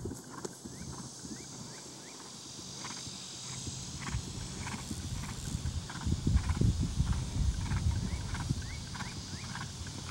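Trakehner gelding cantering on grass, its hoofbeats coming in a steady rhythm. A low rumble swells about six seconds in.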